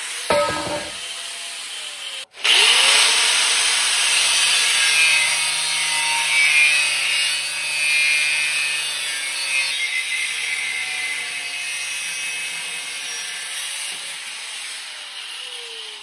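Handheld DeWalt angle grinder grinding steel rectangular tubing: a loud, steady, high grinding noise. It eases off toward the end, where the disc winds down with a falling whine.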